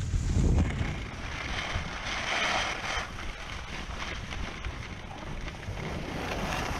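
Wind buffeting the microphone while moving fast over groomed snow, with a hiss of sliding on the packed snow that swells and fades a couple of times.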